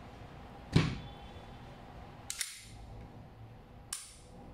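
KJ Works KP-13 gas blowback airsoft pistol being loaded and fired: a loud knock as the magazine is seated, then two sharp cracks about a second and a half apart as the pistol shoots.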